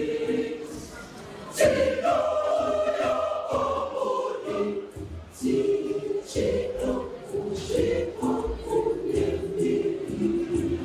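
A church choir of mixed voices singing. It drops away for a moment and comes back in loudly about a second and a half in, with another short lull about halfway through.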